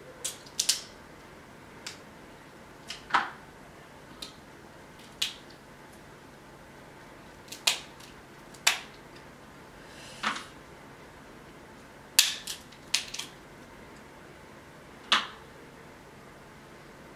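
Snow crab leg shells cracking and snapping as they are broken open by hand: over a dozen sharp cracks at irregular intervals, some in quick pairs.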